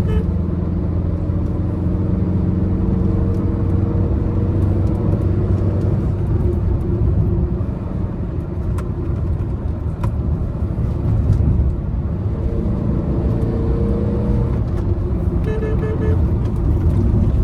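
Tata Nexon's 1.5-litre Revotorq turbo diesel engine running under load through corners, its note falling slightly partway through and rising again near the end.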